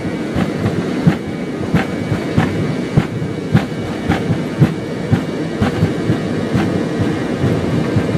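Wheels rolling fast over regular joints: a steady low rumble with a sharp clack about every half to two-thirds of a second.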